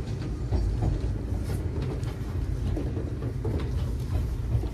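Interior running noise of a Nagano Electric Railway 3500 series electric train car: a steady low rumble from the wheels and running gear, with faint scattered clicks and rattles.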